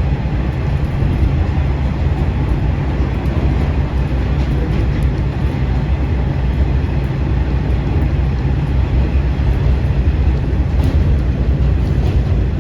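KiHa 40 series diesel railcar under way: a steady low rumble from its diesel engine and its wheels on the rails.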